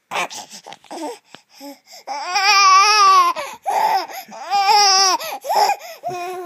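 Baby squealing and babbling: two long, high-pitched calls that rise and fall, about two seconds in and again near five seconds, with short babbling sounds between them.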